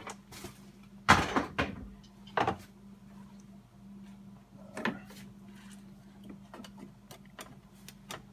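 Plastic engine cover being pulled off its snap-on mounts: a loud knock about a second in, two more smaller knocks, then light clicks of plastic being handled, over a faint steady hum.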